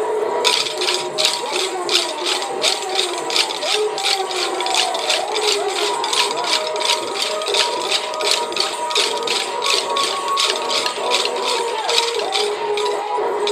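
Kolattam dance sticks, short wooden sticks struck together by many dancers in a fast steady rhythm, about four clacks a second, over music.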